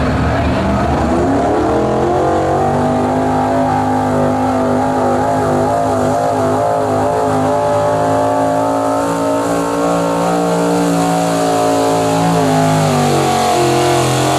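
Pro Stock pulling truck's engine at full throttle during a pull. Its pitch climbs over the first two seconds, then holds high and steady, with a slight dip near the end.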